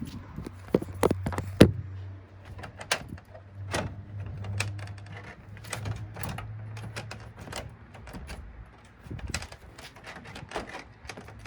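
Plastic TV back cover being pried at and handled: a scatter of sharp clicks and knocks, with a low steady hum beneath for much of the time.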